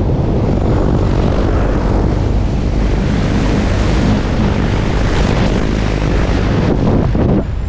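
Light propeller aircraft's engine and rushing wind through the open jump door in flight, loud and steady, dipping briefly near the end.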